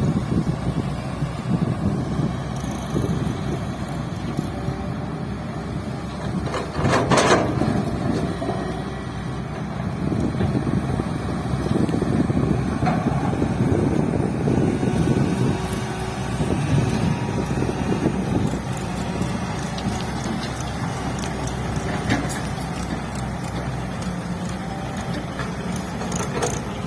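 Diesel engine of a Tata Hitachi excavator working, swelling and easing as the machine digs and loads a tipper truck. A brief louder noise comes about seven seconds in.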